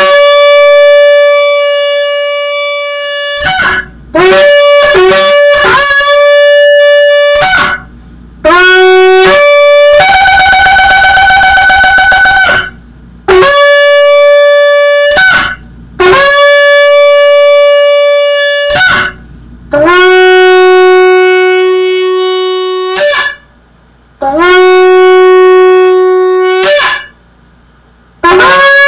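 A 39-inch shofar with a newly enlarged mouthpiece, blown in a series of about a dozen blasts. Most are long held notes; there is a quick run of short notes about four seconds in and a wavering trill about ten seconds in. Two long notes near the end sit on a lower tone.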